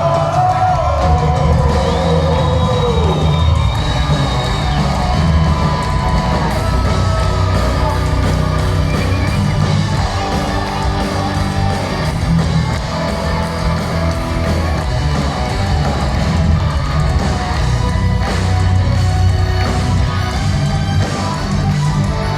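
Heavy metal band playing with distorted guitars, bass and drums, a sung line falling away in the first few seconds, then the band carrying on.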